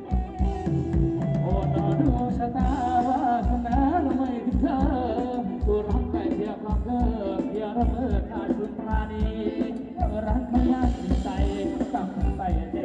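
Live Thai ramwong dance music from a band: a steady kick-drum beat under a wavering melody line.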